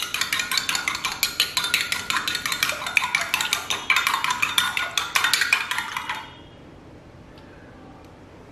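A steel spoon beating raw eggs in a ceramic bowl, rapidly clinking against the bowl's sides with a ringing tone; it stops about six seconds in.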